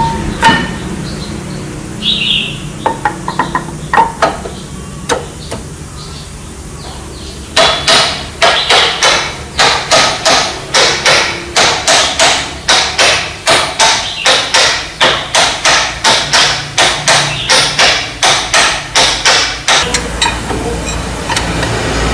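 Hammer blows during truck disc-brake pad fitting: a few scattered knocks, then from about a third of the way in a long run of sharp, steady blows, about three a second, stopping shortly before the end.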